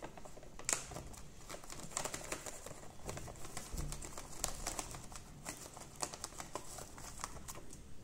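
Plastic snack packet crinkling and crackling as a rose-ringed parakeet bites and tugs at it with its beak: a dense, irregular run of crackles, the sharpest about a second in.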